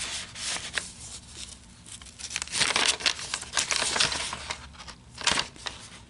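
Paper pages and journaling cards of a handmade junk journal rustling and flapping as they are handled and turned. The rustling is loudest for a stretch about two and a half to four seconds in, with one more brief burst near the end.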